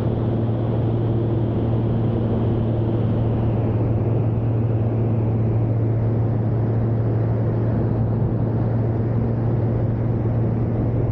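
Van's RV-series homebuilt plane's piston engine and propeller in cruise flight: a steady low drone with rushing air, heard through a wing-mounted camera.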